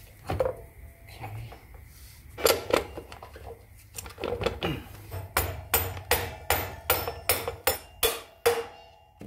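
Rubber mallet tapping the rear axle through a motorcycle's swingarm and wheel hub, a run of about ten sharp strikes, roughly three a second, in the second half. Before that, a few scattered metal clinks and knocks as the axle is worked in by hand.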